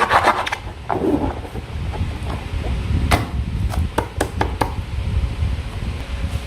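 Slime being squished and handled: a quick run of sticky squelching clicks that stops about half a second in, then scattered sharp clicks and knocks.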